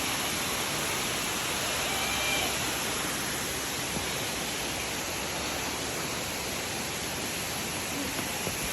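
Waterfall, a steady even noise of falling water.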